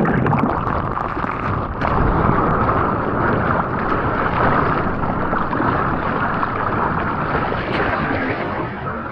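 Ocean water rushing and splashing close to an action camera's microphone, with wind buffeting the mic: a steady, loud rush with a few sharp splashes near the start.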